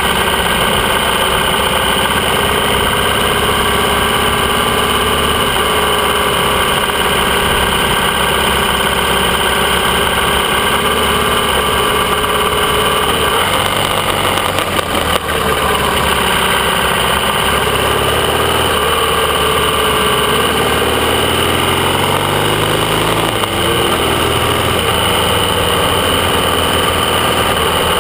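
AJS 650 CSR parallel-twin motorcycle engine running under way, heard from the bike itself, with its revs rising for a few seconds about two-thirds of the way in.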